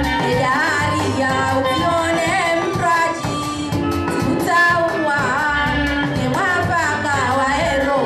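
A woman singing a Comorian lelemama song through a microphone, her voice wavering and sliding between notes over amplified band music with a steady pulsing beat.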